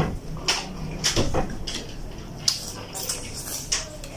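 Noodles being eaten with chopsticks: several short slurps and a sip, with light clinks of chopsticks against glass bowls.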